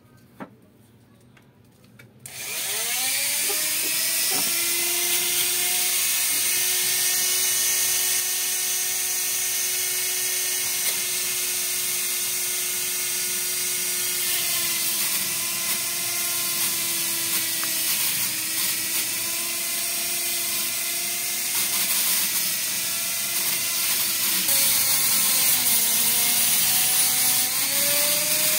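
Rotary tool on a flexible shaft starting up about two seconds in, its whine rising quickly, then running steadily while its cut-off disc grinds a small steel part, the pitch dipping several times under the load.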